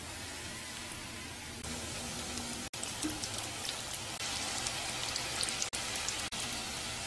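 Sweet potato croquettes deep-frying in a pot of hot oil: a steady sizzle with fine crackling, dropping out briefly a few times.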